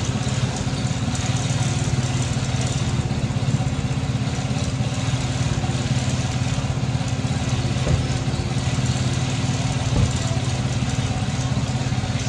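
Motorcycle engine idling steadily with an even hum, and two short knocks about eight and ten seconds in.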